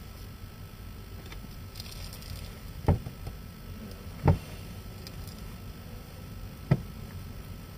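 Three dull thumps of handling noise on a handheld camera's built-in microphone, over a steady low rumble. The second comes about a second and a half after the first, and the third about two and a half seconds after that.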